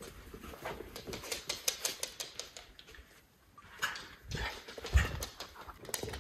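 Miniature schnauzers' claws clicking rapidly on a hard floor as they run, then a couple of dull thumps about four and five seconds in as they romp with toys.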